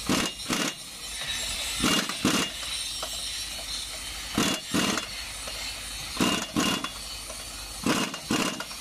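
Impact wrench hammering the clutch pressure-plate bolts onto the flywheel of a MAN TGS truck engine as the new clutch is fitted. It goes in short bursts in pairs, five pairs about every second and a half to two seconds.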